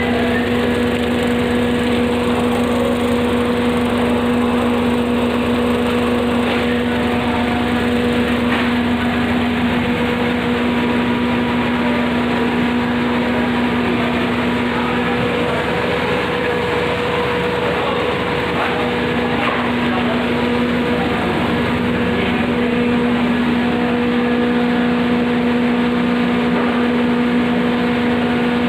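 Automatic rock salt grinding plant running: a steady, loud machine drone with a constant hum.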